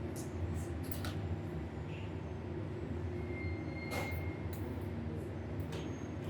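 Steady low mechanical rumble, with a few faint clicks or knocks over it.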